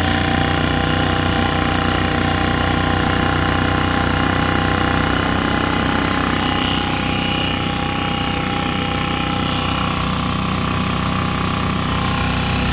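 Mercury 3.5 hp four-stroke single-cylinder outboard motor running steadily at about half throttle, pushing a kayak along, with water rushing past.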